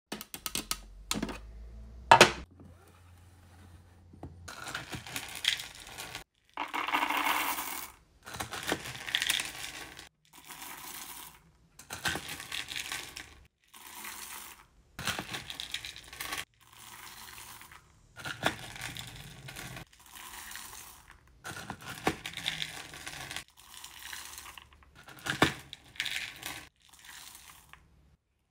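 Blue hard wax beads poured in a dozen or so separate batches into a wax warmer pot, each pour a rattling, pattering cascade of beads about a second long. Near the start come two sharp plastic clicks, the loudest sounds, as the warmer's empty clear insert is handled.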